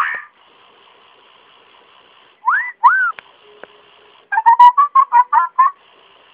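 Electronic squeaks from a plush toy hamster: two rising squeaks about two and a half seconds in, then a quick run of high chirps about four and a half seconds in.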